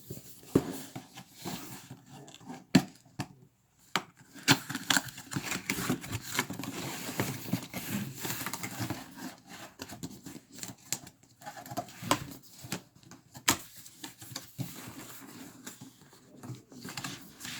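Cardboard shipping package being opened and unpacked by hand: irregular rustling, scraping and tearing of packaging, broken by sharp knocks and taps, the loudest about three seconds in and again past the middle.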